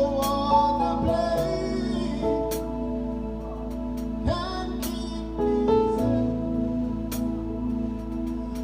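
Gospel worship music: a voice singing over held chords, with plucked guitar.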